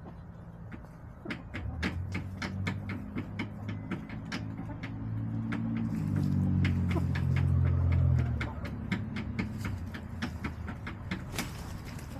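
Chickens pecking at food on the dirt floor close by, a rapid run of sharp taps. Behind them a low engine hum swells, is loudest about eight seconds in, then fades, as of a vehicle passing.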